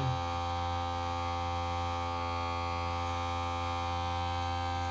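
Steady electrical hum at mains frequency with many fixed overtones, unchanging throughout.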